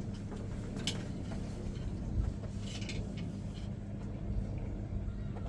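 Steady low hum with scattered light clicks from an LG washing machine's control board as it is powered on; the relay clicks show the board is getting power.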